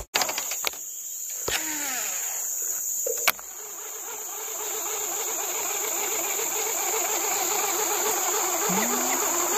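Insects droning steadily at a high pitch, with a sharp click about three seconds in.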